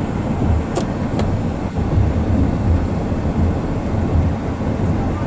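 Steady low road and engine rumble heard inside a car's cabin, with two light clicks about a second in.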